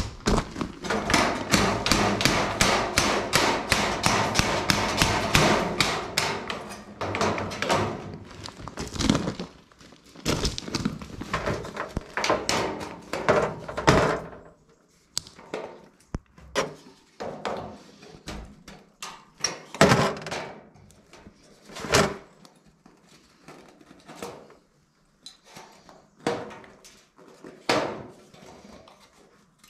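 Galvanized sheet steel being knocked and worked into a steel feeder frame with a hammer and by hand: a fast run of knocks and clatter for about the first seven seconds, then scattered single knocks and taps.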